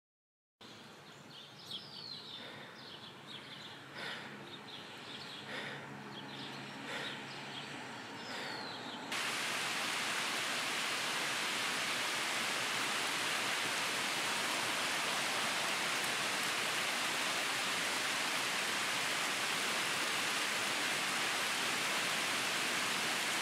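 Rain falling, lighter and uneven at first with a few short chirps, then about nine seconds in it jumps suddenly to a loud, steady downpour.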